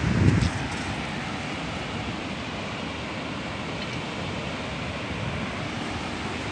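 Steady rushing noise of wind and sea surf, with a brief gust buffeting the microphone in the first half second.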